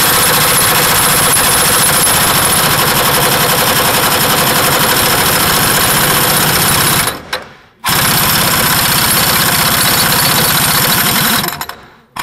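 Large Ingersoll Rand air impact wrench hammering on the head of a Caterpillar D9G lift-ram hydraulic cylinder to unscrew it. It runs in two bursts: a long run, a brief stop about seven seconds in, then a second run of a few seconds.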